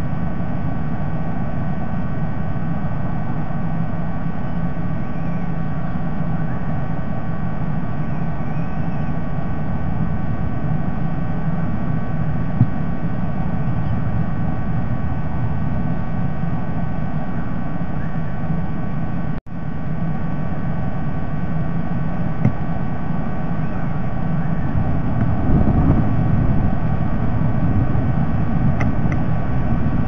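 Steady low rumble and hiss with a constant faint electrical hum on a nest-camera feed, cutting out for a moment about two-thirds through and growing slightly louder near the end.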